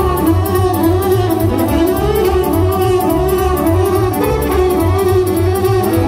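Live band playing an instrumental passage of Romanian party dance music: a wavering lead melody over a steady beat of bass thumps and evenly spaced cymbal ticks, with no singing.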